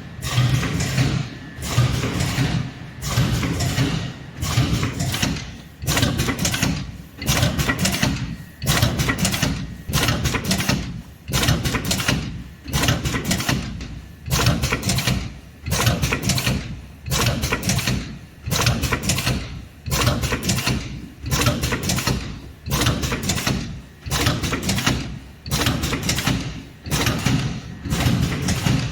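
GR320-2 two-lane packing machine for sticks and sachets running through its cycle, a mechanical burst repeating evenly about once a second with short quieter gaps between.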